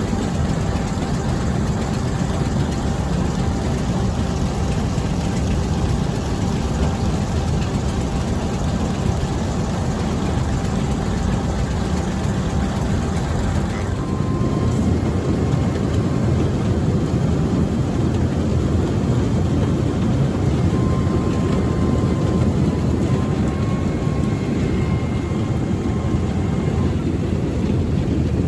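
Heavy diesel engines or machinery running with a steady, loud low rumble. About halfway through, faint thin whining tones join in.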